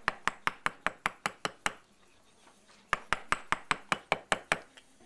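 Hammer striking a steel point chisel into stone: quick, sharp blows about five a second, in two runs with a pause of about a second between them.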